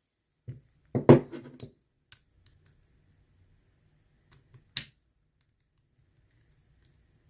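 Small metal clicks and scrapes of a tool prying at the circlip on a Mul-T-Lock euro cylinder lock, with a louder click about a second in and another sharp one near five seconds.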